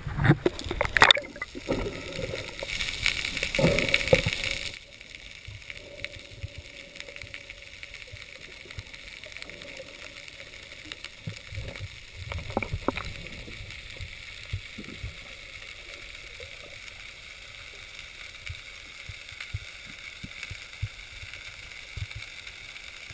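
Underwater ambience heard through a diving camera: a quiet steady hiss with scattered small clicks and crackles. For the first few seconds a louder rushing of water dominates, then drops away about five seconds in.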